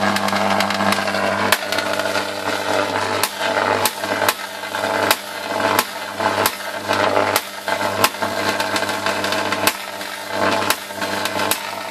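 Jacob's ladder arc driven by a high-voltage transformer: a steady, loud electrical buzz, broken by about a dozen sharp snaps at irregular intervals as the arc climbs the wires, breaks and re-strikes at the bottom.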